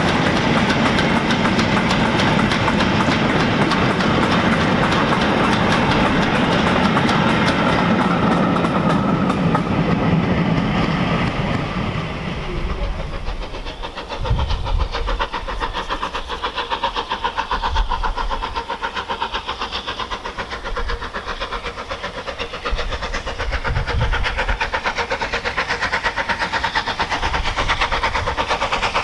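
Four-wheeled goods wagons of a freight train rolling past close by, their wheels clicking rhythmically over the rail joints. After about 14 s this gives way to a distant Bulleid three-cylinder Battle of Britain Pacific steam locomotive working a goods train, growing louder as it approaches, with low thumps of wind on the microphone.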